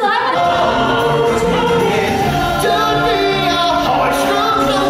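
A number from a live stage musical: a chorus of voices singing together over a sustained instrumental backing, loud and continuous.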